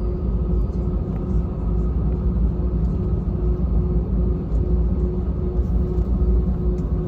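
Steady low rumble inside the cabin of an Airbus A320-214 in flight operation, from its CFM56 jet engines and the airflow, with a faint even hum pulsing in the middle.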